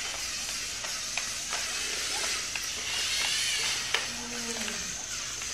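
Lego Mindstorms robots moving and bumping, scattered plastic clicks and knocks over a steady hiss, with a faint voice briefly about four seconds in.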